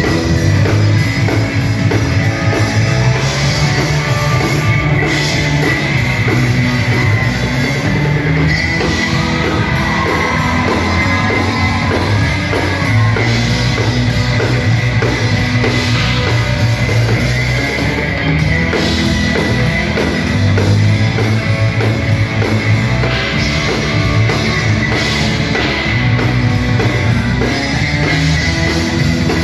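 Live rock band playing loud through the stage PA: electric guitar over a steady drum-kit beat.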